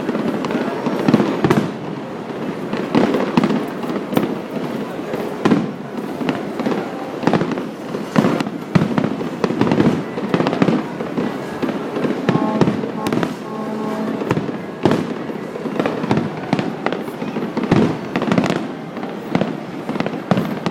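Fireworks bursting in a rapid, continuous series of bangs and crackles, with no let-up.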